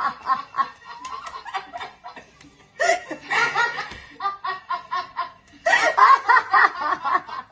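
Women laughing hard in quick runs of 'ha-ha-ha', as in a laughter-therapy exercise; it dips about two seconds in and is loudest near the end.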